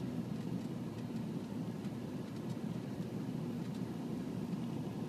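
Four-wheel-drive vehicle driving, a steady low rumble of engine and road noise heard from inside the cab.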